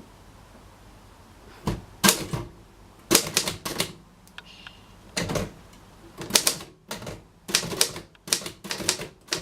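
Typing on a 1938 Imperial Model 50 manual typewriter: irregular bursts of sharp key clacks as the typebars strike the paper, starting about two seconds in.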